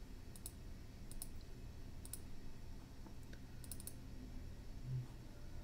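Computer mouse buttons clicking: a few faint single clicks about a second apart, then a quick double-click. A soft low thump comes near the end.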